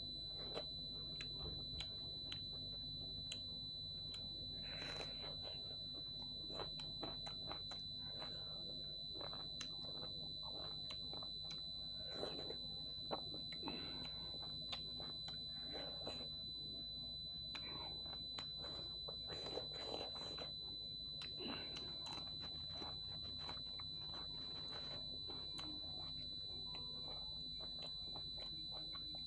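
Close-up eating sounds of dhido and chicken curry eaten by hand: chewing, lip smacks and fingers working the wet food, heard as many short scattered clicks and squelches. A steady high-pitched whine runs under them.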